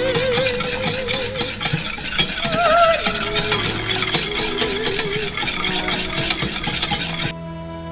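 Rapid stirring of a thickening lemon topping in a saucepan on the flame: a utensil scrapes and clicks quickly against the pan, then stops suddenly near the end.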